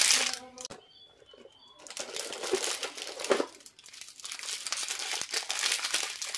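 Clear plastic lollipop wrappers crinkling as handfuls of wrapped rose-shaped lollipops are handled. Loud at the start, a lull of about a second, then crinkling again with a sharp burst in the middle and steady rustling near the end.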